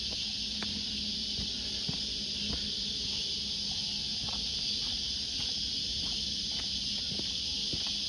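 Steady, high-pitched insect chorus hissing without a break, with light, irregular footsteps crunching on the dry leaf-littered trail.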